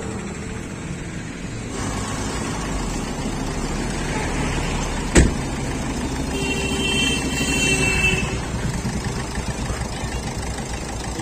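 Steady rumble of running vehicle engines and street traffic, with a single sharp click about five seconds in and a brief high tone a little later.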